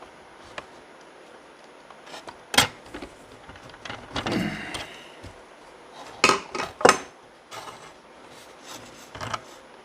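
Handling noise from hand tools and wire being worked into a butt connector for a cord splice: a few sharp clicks and knocks with smaller ticks between them, and a short stretch of rubbing in the middle.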